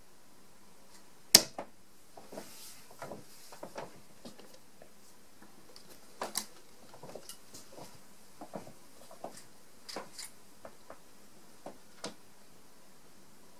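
A 25 g tungsten steel-tip dart thuds into a bristle dartboard about a second in. Then darts are pulled out of the board and handled, with scattered small clicks and rustles.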